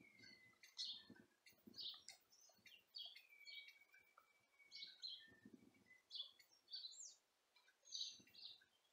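Faint birdsong: many short high chirps, with a couple of long, thin whistled notes that fall slightly in pitch.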